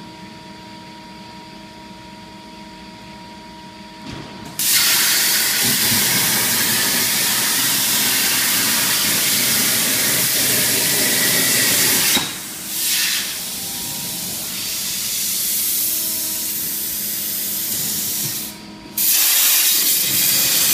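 CNC plasma cutting torch cutting diamond-tread plate: after a few seconds of steady machine hum, the plasma arc starts with a sudden loud hiss. It breaks off briefly twice and starts again each time.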